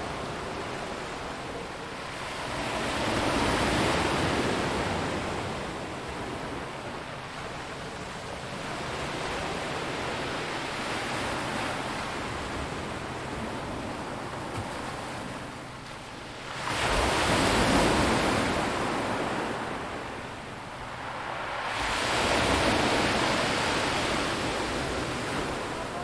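Sea waves breaking and washing over a rocky beach, swelling in slow surges every five to seven seconds. The strongest wave comes in abruptly about two-thirds of the way through.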